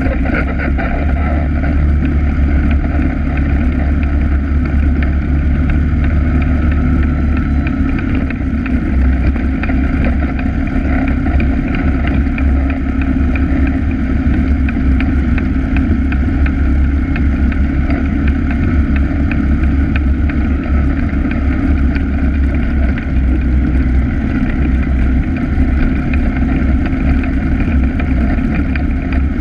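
ATV engine running steadily while the machine rides along a dirt trail, heard close up from a camera mounted on the ATV itself: a constant low engine drone with no marked revving or pauses.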